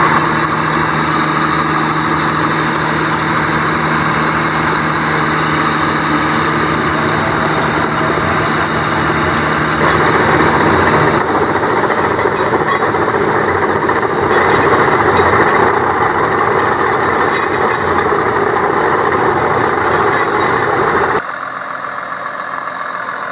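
An engine running steadily. The sound changes abruptly about 11 seconds in and drops sharply in level about 21 seconds in.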